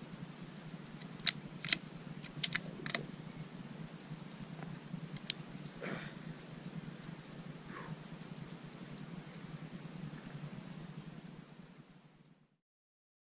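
A few sharp clicks close to the microphone, several in the first three seconds and one more about five seconds in, over a steady low hum and faint scattered high ticking. The sound fades out shortly before the end.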